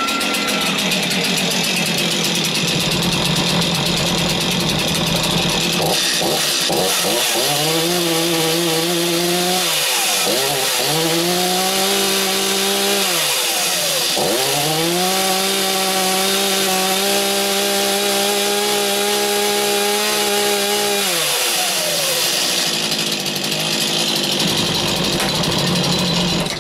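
Stihl MS251C two-stroke chainsaw running on a test run after cleaning and maintenance: it idles, is revved up and let fall back three times, the last rev held for several seconds, then idles again and shuts off suddenly at the end.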